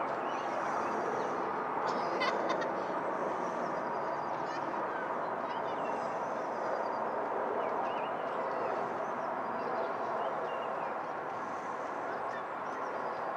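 Airbus A321-211 airliner's twin CFM56 jet engines droning steadily overhead on approach, easing slightly near the end, with birds chirping over it.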